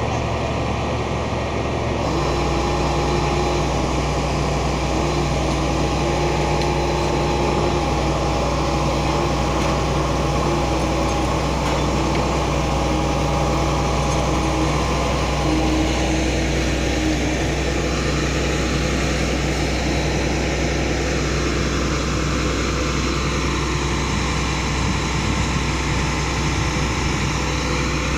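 Diesel engine of a Hitachi excavator-based piling rig running steadily, picking up about two seconds in, while the rig's winch hoists a concrete pile.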